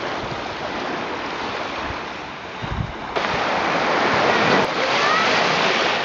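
Small sea waves washing up onto a sandy beach, a continuous rush that steps up louder about halfway through. A few short bird calls sound over the surf near the end.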